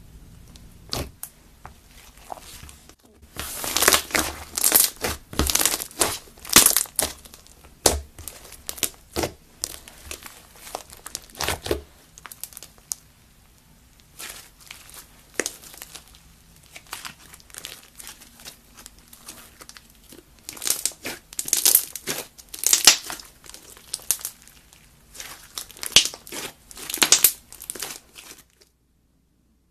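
Hands squishing and stretching slime, making dense runs of clicks and pops in two busy stretches. The sound cuts off shortly before the end.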